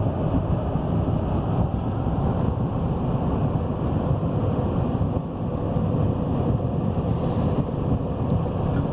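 Chevy Silverado 3500 pickup driving along, heard from inside the cab: a steady rumble of engine and road noise with some wind noise.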